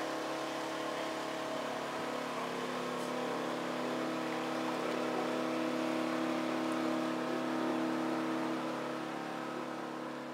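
An engine running steadily at constant speed, a level hum that eases off slightly near the end.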